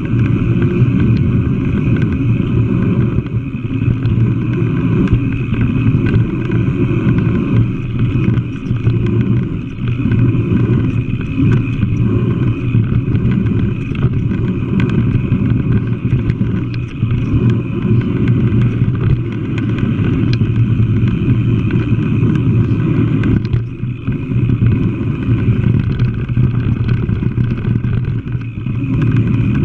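Steady rumble of a mountain bike rolling fast over a dirt singletrack, with wind on the microphone and scattered small knocks and rattles from the trail.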